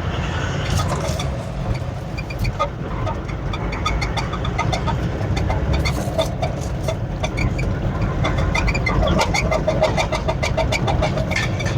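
Toyota 1VD 4.5-litre V8 diesel pulling in second gear on light throttle, a steady low rumble with many short sharp ticks over it. It is misfiring and knocking, which the mechanic puts down to a fuel injector that is not working properly, leaking or blocked.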